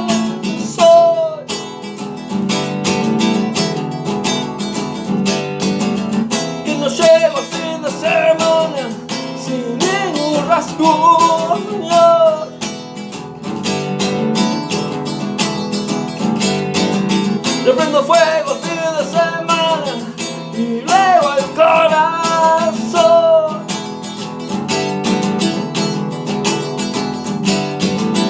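Instrumental break of a Spanish-language pop-rock song: strummed acoustic guitar with a melodic lead line that slides and bends, coming and going over the strumming.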